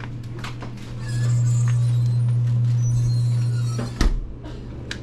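Drinks cooler humming steadily, louder for a few seconds, then a thud about four seconds in as a door shuts, followed by a few light clicks.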